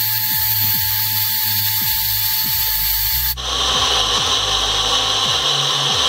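Mixer grinder motor running at full speed with a small jar, blending milk, oil and vinegar into eggless mayonnaise as the oil emulsifies. The steady whir changes its tone suddenly a little over three seconds in.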